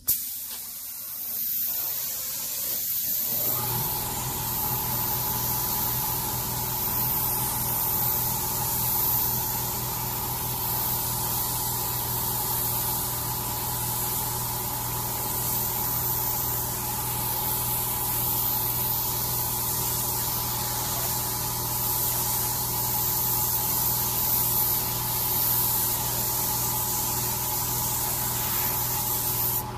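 Gravity-feed spray gun hissing with compressed air as it lays on a first coat of paint at low air pressure. The spray starts right at the beginning and runs without a break, and a steady machine hum comes in under it about three and a half seconds in.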